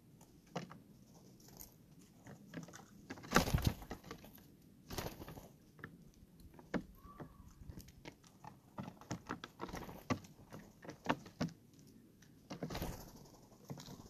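Steller's jays landing on a table and pecking at and picking up peanuts in the shell: scattered taps, scrapes and knocks. The loudest knock comes about three and a half seconds in, and a quick run of taps follows later on.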